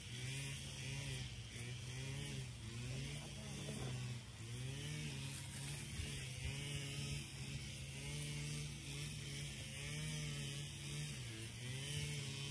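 A small engine running steadily nearby, its pitch rising and falling slightly about once a second.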